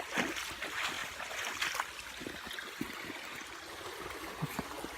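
Rainwater running in a bush creek, a steady rush of water with a few short splashes and knocks scattered through it.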